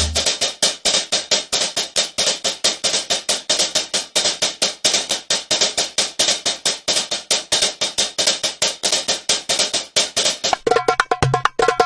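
Fast percussion loop of sharp, bright strokes, about six a second, with no bass. Near the end a pitched instrument phrase with low notes comes in.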